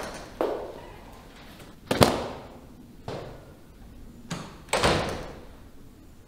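A few separate knocks and thumps, the sharpest about two seconds in, then a wooden double door swinging shut a little before five seconds in.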